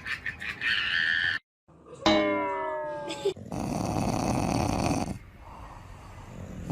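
A pet animal vocalising across short separate clips: a falling cry about two seconds in, then a rough, noisy sound lasting about a second and a half.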